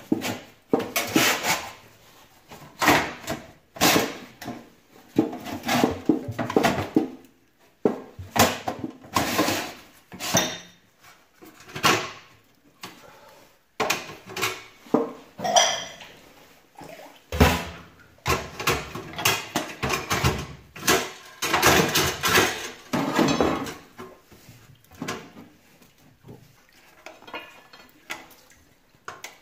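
Steel safe deposit box drawers being pulled out and rummaged through, with irregular metal clanks, rattles and scrapes of sheet steel throughout.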